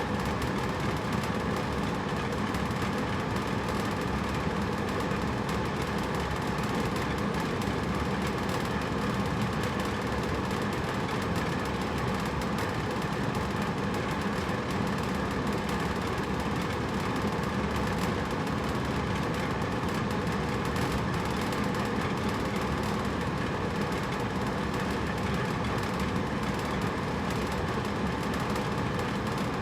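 Hotel room air conditioner running steadily: an even whooshing hum with a faint low drone and no changes.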